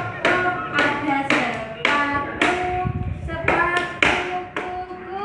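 Steady rhythmic claps, about two a second, each followed by a short held pitched note.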